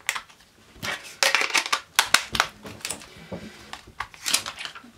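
Plastic clicks and scrapes of a MobiWire Pictor feature phone's back cover being pressed and snapped into place over the battery, a quick run of sharp clicks with rubbing in between.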